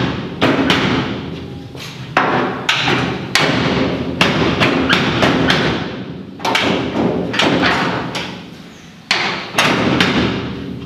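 A door trim panel being banged into place by hand on a Chevrolet C14 pickup's steel door: a string of sharp thumps, roughly one or two a second, each ringing briefly in the door shell as the panel's clips are seated.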